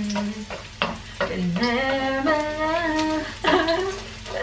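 A woman singing a few long held notes over garlic sizzling in olive oil in a pan. Stirring clicks against the pan sound here and there.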